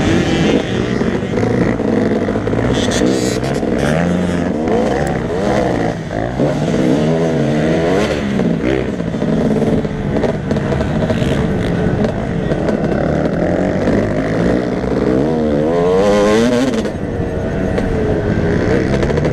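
Motocross bike engine revving up and dropping back again and again as the bike accelerates, shifts and slows around a dirt track, heard from a helmet-mounted camera. The pitch climbs and falls most sharply about seven seconds in and again near the end.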